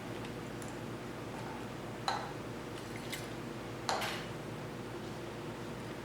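Steady electrical hum of a running parts-cleaning tank, with two sharp clicks of metal parts being handled, about two and four seconds in.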